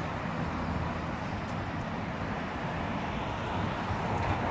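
Steady hum of city road traffic, cars passing on a busy multi-lane road, with some wind on the microphone.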